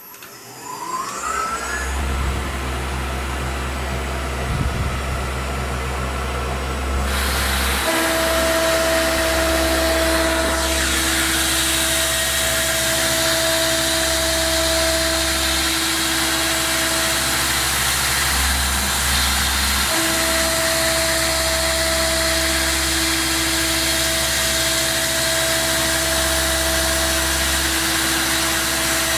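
CNC milling machine spindle spinning up with a rising whine, then running steadily. About seven seconds in, a hiss joins it and a steady pitched whine sets in as the tool cuts into the hole in the metal block, dropping out briefly a little past halfway before resuming.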